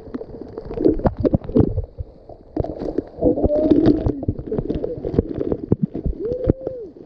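Water splashing and sloshing as men wade and scoop water under a fountain, with spray falling on and around the camera. It comes in an uneven run of sharp splashes.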